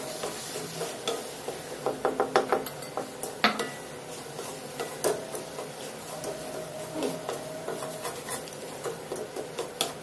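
Wooden spatula stirring and scraping a thick coconut and sugar mixture around a metal kadai, with irregular knocks against the pan and a quick run of knocks about two seconds in. The mixture is thickening at the last stage of cooking.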